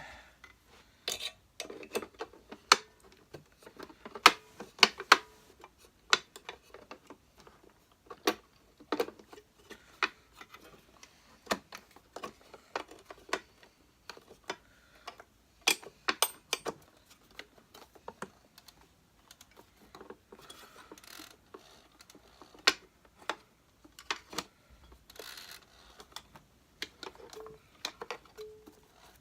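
Parts of a Hoover Senior Ranger U4002 upright vacuum cleaner being handled and refitted by hand: irregular clicks and knocks as the brush roll and its cover go back on.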